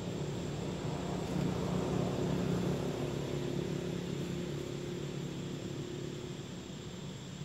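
A motor engine humming in the background, swelling to its loudest about two seconds in and then slowly fading.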